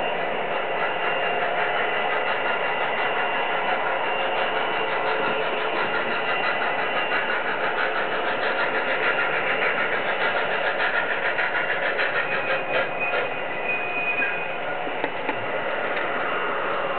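HO scale model trains running on a layout: a steady small-motor whir with a fast, regular clatter that is strongest through the middle.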